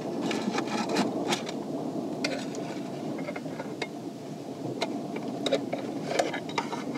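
Handling sounds: a cloth and a padded fabric bag rubbing and rustling, with scattered light clicks and scrapes as a hot metal mess kit's latch and lid are worked open.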